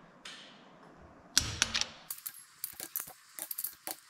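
Click-type torque wrench tightening a cylinder head nut: a few sharp, loud clicks about a second and a half in as it reaches the set torque, then a quick run of ratchet clicks as the wrench is swung back.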